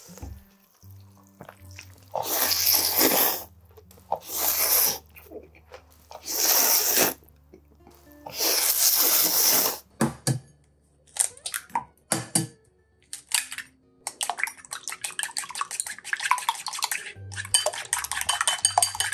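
Soft background music with four bursts of rushing noise in the first half. About ten seconds in come a few sharp knocks as eggs are cracked against a ceramic bowl. From about fourteen seconds, chopsticks beat the eggs in the bowl in a fast, steady clatter of clicks.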